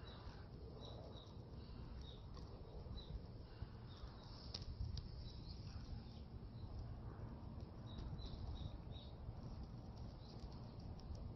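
Small birds chirping: short high chirps in little irregular clusters, over a faint low steady rumble.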